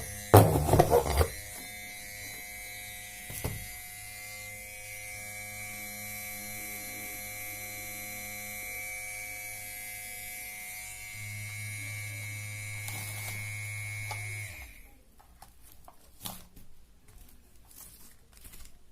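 Small electric motor of a homemade mini drill running with a steady high whine, then switched off and stopping abruptly about three quarters of the way in, followed by a few light clicks. A couple of knocks from handling come just before the motor settles.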